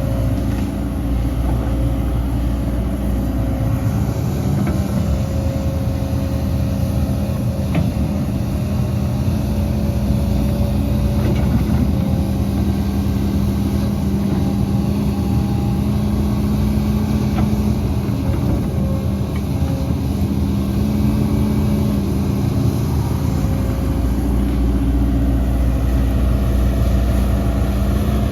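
Heavy diesel engine of earthmoving machinery running steadily, its revs rising and easing slightly now and then.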